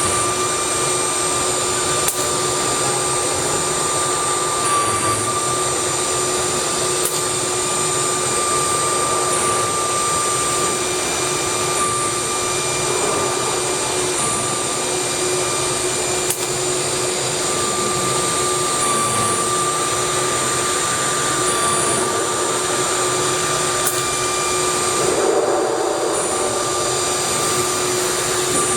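A woodworking CNC router running: a steady whine from the spindle over a continuous rushing noise, with a few faint clicks.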